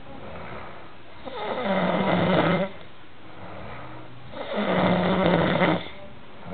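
Snoring: two long, loud snores about three seconds apart, each holding a steady low buzzing pitch, with quieter breathing between them.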